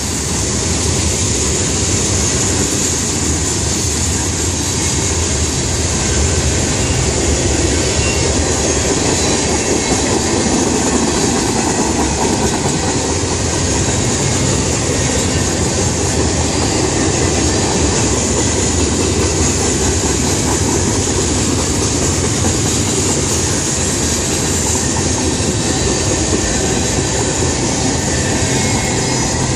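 Freight train's cars (tank cars, covered hoppers, boxcars) rolling past close by: a loud, steady rumble and clatter of steel wheels on rail, with a high hiss above it.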